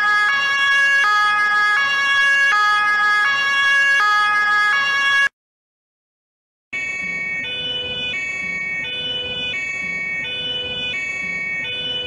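German police two-tone siren (Martinshorn) alternating between a high and a low note about every three-quarters of a second. It cuts off about five seconds in, and after about a second and a half of silence a second, quieter two-tone siren starts.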